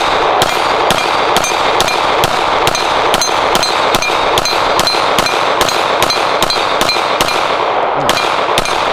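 A pistol fired in a steady string of about two shots a second, roughly nineteen shots, with the steel plate targets ringing after the hits.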